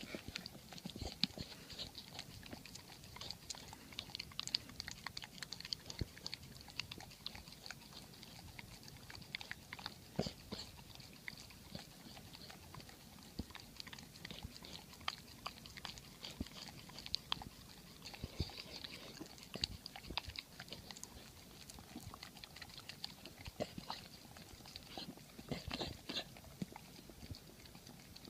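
Golden retriever eating peanut butter off a spoon: many quick, irregular wet smacks and clicks of the tongue and jaws working at the sticky peanut butter.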